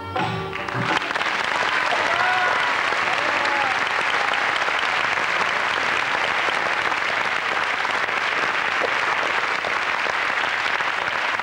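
The sitar-led dance music ends within the first second, and then an audience applauds steadily. A few brief calls rise over the clapping about two seconds in.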